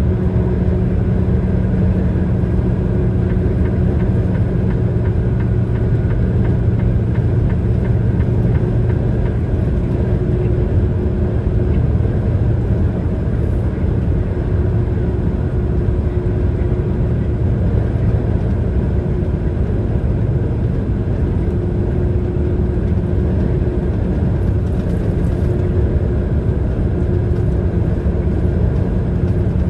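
Steady road and engine noise of a vehicle cruising at highway speed, heard from inside the cab: an even low rumble with a faint steady hum running through it.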